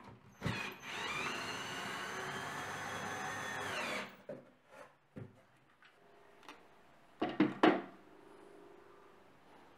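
Cordless drill driving a screw into a pine frame rail: a click, then about three seconds of steady motor whine that tails off as it stops. A few sharp wooden knocks follow, the loudest a quick cluster about three-quarters of the way in.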